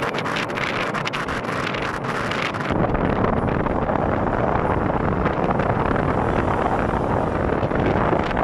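Wind rushing past a moving car with tyre and road noise, buffeting the microphone. About three seconds in the low rumble grows heavier and the sound gets slightly louder.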